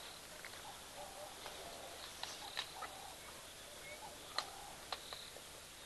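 African wild dogs feeding on a kill: a few faint short squeaks and scattered sharp clicks, the loudest click about four and a half seconds in.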